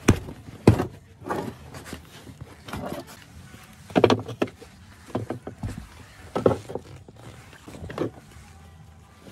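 Handling noises inside a car: irregular knocks, clatters and rustles as pine boards and a blanket are laid across the leather back seat, with the loudest knocks at the start and about four and six and a half seconds in.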